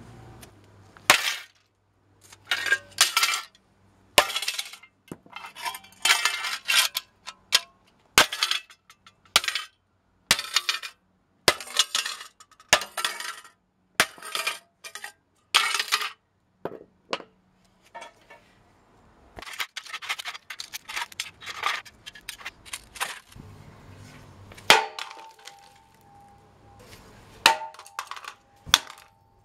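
Hard plastic computer accessories, a mouse among them, being smashed with a wooden stick on stone paving slabs: sharp cracks and clattering of breaking plastic, with fragments skittering across the stone. The blows come irregularly, some in quick pairs, with a dense run of rapid hits about two-thirds of the way through.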